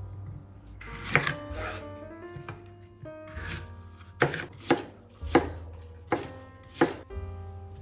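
Chef's knife cutting an apple into chunks on a bamboo cutting board: crisp crunches through the fruit, each ending in a sharp knock of the blade on the wood, about seven knocks in all. Soft background music runs underneath.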